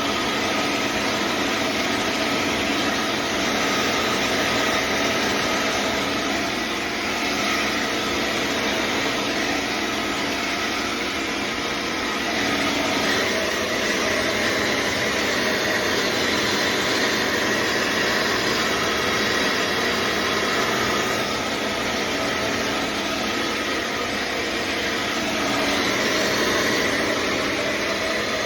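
Revlon hand-held hair dryer with a diffuser attachment running steadily, with a steady whir and rush of air that swells and dips a little as it is moved about the hair.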